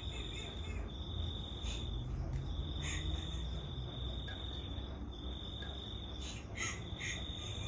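Crickets chirping: a steady high trill broken by short gaps, over a low rumble, with a few brief higher chirps scattered through.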